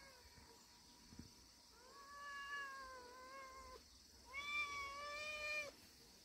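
A cat meowing: a brief meow at the start, then two long, drawn-out meows, the second louder.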